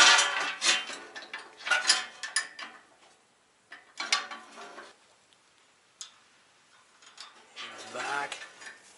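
A wrench working a nut off a bolt on a steel aerator frame: quick metal clicks and clinks through the first two and a half seconds, then a few scattered single knocks.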